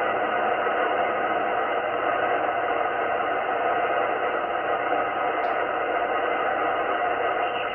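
Receiver static from a Yaesu FT-710 HF transceiver on 10 m upper sideband: a steady hiss with no station coming through, the sign that the band has all but closed. A single short click about five and a half seconds in.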